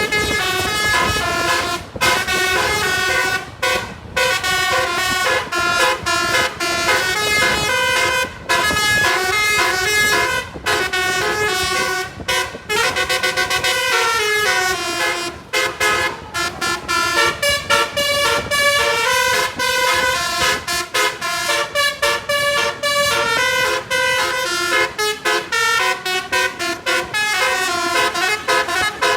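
Basuri multi-tone telolet bus horn playing a fast tune of short notes that step up and down in pitch, with brief breaks every few seconds.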